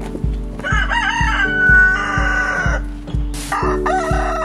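A rooster crowing: one long crow that wavers at first and then holds a steady note, beginning about a second in, and a second crow starting near the end. Background music with a steady beat plays underneath.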